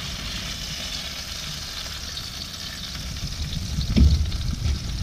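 Mulloway fillets and tomatoes sizzling steadily in oil in a frying pan, with a dull thump about four seconds in.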